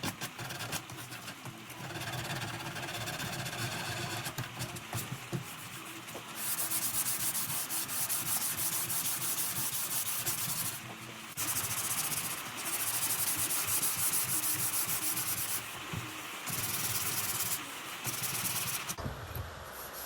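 Sandpaper rubbed by hand over bare wood, a rasping hiss in long stretches of strokes with short pauses between them, loudest through the middle and in shorter spells near the end.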